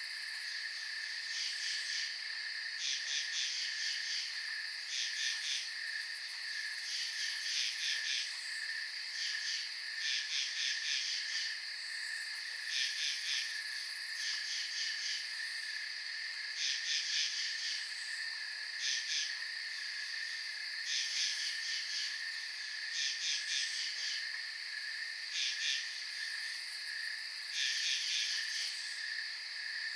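Night-time field insects such as crickets: a steady high trill with bursts of rapid pulsed chirping every second or two over it.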